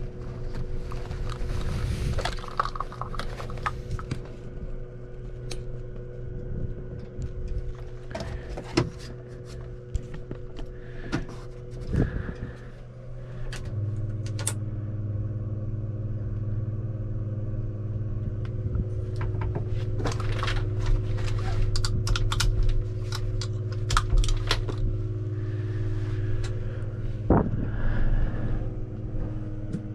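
Clicks and clunks of harness buckles and cockpit switches in an Airbus H125 cabin during pre-start checks, over a steady hum. About halfway through, a louder, deeper hum comes on while the switches are being worked.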